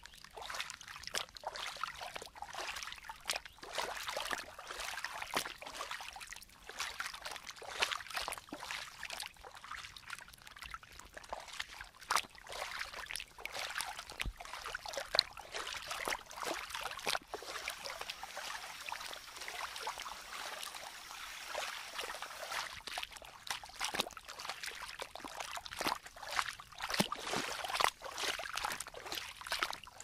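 Shallow rocky hill stream trickling and splashing over stones, a steady wash with many small irregular splashes.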